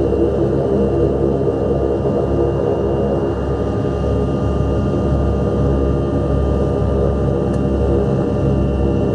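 The Rolls-Royce Dart turboprop engines of a Hawker Siddeley HS 748 running steadily: a deep, even drone with a steady high whine over it, heard from inside the cabin.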